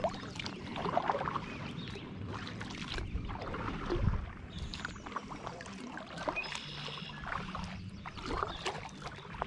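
Kayak paddle strokes: the blade dipping and pulling through calm water with irregular splashes and drips at an unhurried pace, with a low thump about four seconds in.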